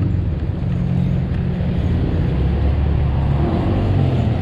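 Husqvarna EE5 electric mini motocross bike ridden at full throttle in power mode 1, its lowest setting: a steady low rumble with no engine note.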